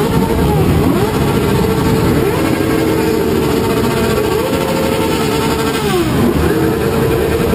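Several motorcycle engines revved hard at once, each climbing in pitch, held steady at high revs for a second or two, then dropping back, overlapping over the rumble of many idling bikes.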